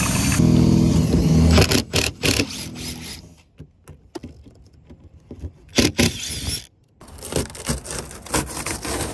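A motor runs steadily for about the first second and a half, then gives way to scattered clicks and scrapes of hand work on the boat. Near the end comes a dense scraping and rubbing as old boat carpet is torn up from the deck.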